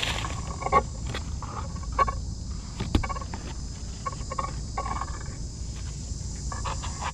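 Dry leaf litter rustling and crackling under a hand digging for mushrooms, in short irregular bursts with sharp snaps about a second in, at two seconds and at three seconds. A steady high insect drone runs underneath.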